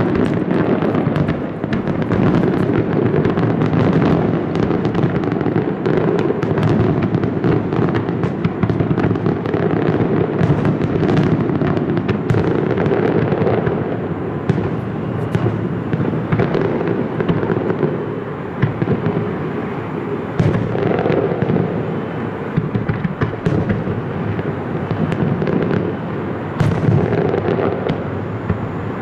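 Aerial fireworks display: a continuous barrage of shell bursts, deep booms running together into a rumble with many sharp cracks on top.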